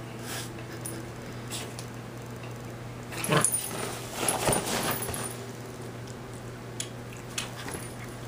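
A small dog nosing and snuffling at a micro pig on a duvet, with a few short, louder noisy bursts about three seconds in and again a second later.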